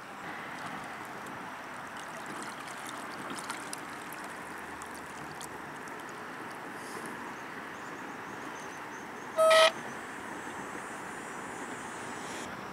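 The boat's add-on horn gives one short toot about nine and a half seconds in, over steady background hiss.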